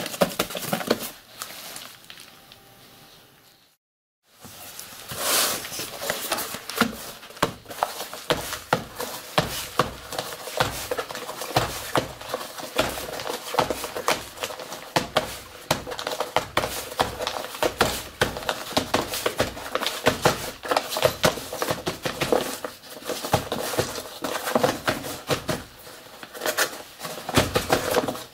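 Paper and cardboard of a cylindrical firework shell casing being packed by hand: dense crinkling and crackling of paper with many sharp clicks and light knocks as the contents are pressed down with a tamping tool. The sound breaks off briefly about four seconds in.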